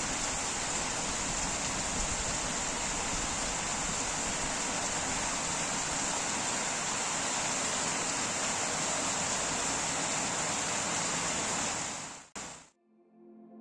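Steady rain falling outside, an even hiss that cuts off abruptly about twelve seconds in.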